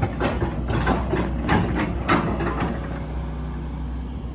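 Excavator's diesel engine running steadily, with a quick run of knocks and scrapes from the working machine during the first two and a half seconds.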